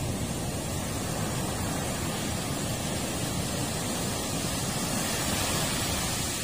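Heavy surf: big waves breaking in a steady rush of noise.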